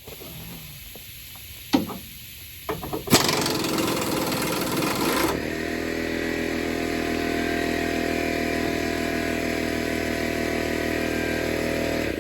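A few knocks, then a loud rushing hiss lasting about two seconds, then an air compressor's motor starts and runs steadily, recharging its tank.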